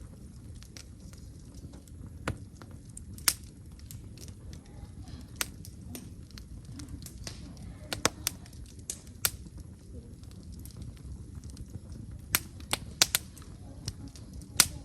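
Burning firewood crackling, with a dozen or so sharp, irregular pops and snaps that come closer together near the end.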